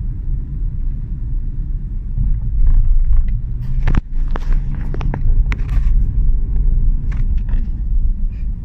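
Steady city road-traffic noise, mostly low, with a cluster of sharp clicks and knocks through the middle and a couple more near the end.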